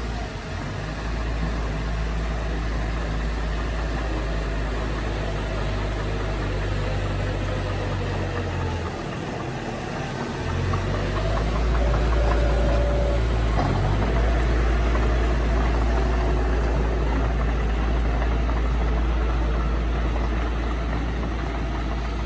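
Heavy earthmoving machine engine running steadily, growing louder about eleven seconds in.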